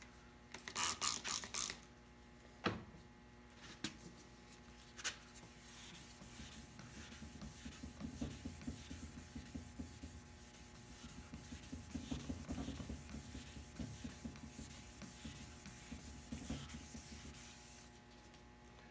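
A trigger spray bottle spritzing water several times in quick succession, then a few sharp clicks. Then folded wet sandpaper rubbed back and forth in quick, even strokes over the wet finish of a mahogany and basswood model hull during wet sanding.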